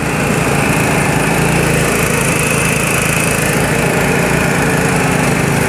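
Riding lawn mower engine running steadily at full throttle under heavy load, straining against a tow strap while its rear tyres dig into the dirt.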